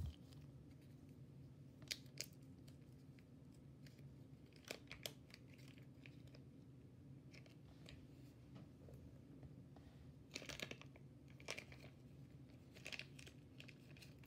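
Near silence: a steady faint low room hum with a few short, quiet crinkles and clicks scattered through it.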